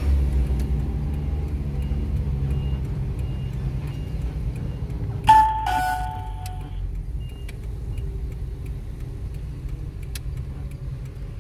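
A car's engine runs, louder for the first few seconds and then easing. About five seconds in, a loud two-note electronic ding-dong chime sounds from the dashboard test-scoring unit, and faint regular ticking comes about twice a second throughout.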